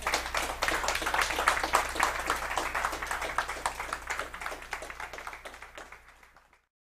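Audience applauding at the end of a talk, a dense patter of many hands clapping that dies away over the last couple of seconds and stops.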